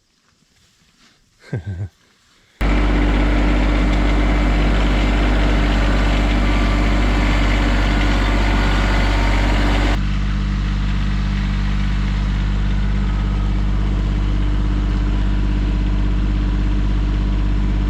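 Compact tractor's diesel engine running steadily and loudly. It cuts in suddenly a couple of seconds in, and its note drops abruptly to a different steady pitch about halfway through.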